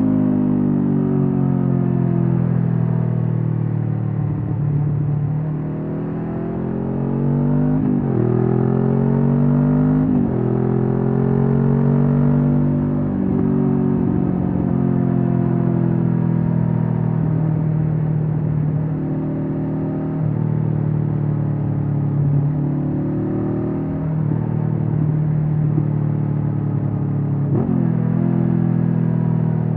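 Honda CB500F's parallel-twin engine through a Mivv GP Pro aftermarket exhaust, riding under way: the engine note climbs with throttle, then drops sharply at each gear change, several times, and holds steadier in between.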